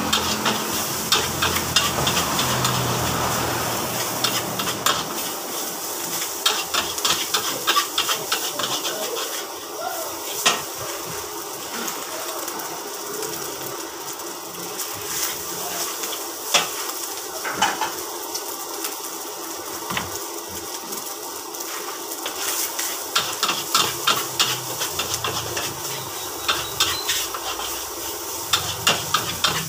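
Fried rice stir-frying in a large wok: a metal spatula scrapes and clanks against the wok in bursts over steady sizzling.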